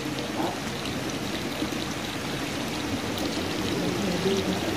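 Steady sound of running water, a continuous flow or pour with no breaks.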